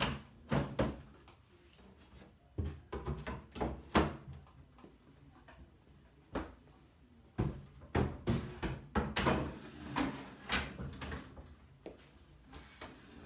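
Drawer and undermount slide hardware being handled: irregular clicks, knocks and short rattles as a slide is unhooked and re-seated a notch higher on the grid and the drawer is lifted off and set back on. The busiest stretch of knocking comes after the middle.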